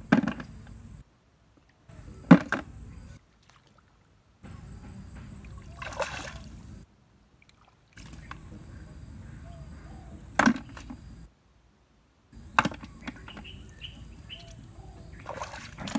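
Bare feet sloshing and splashing in shallow muddy water, in short stretches that start and stop abruptly. A few sharp knocks cut through it, snails being dropped into a plastic bucket.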